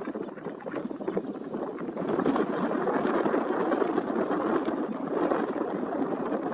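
Gusty wind rushing steadily, with no bird calls standing out.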